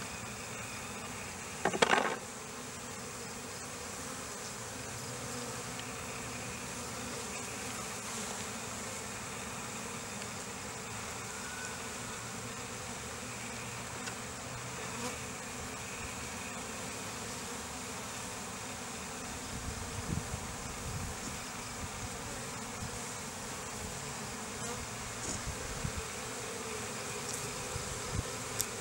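Honeybees buzzing steadily around an opened hive, with one sharp knock about two seconds in and a few light knocks near the end.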